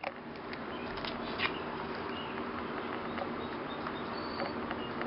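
Steady background hiss, with a few faint, short, high chirps and light clicks scattered through it.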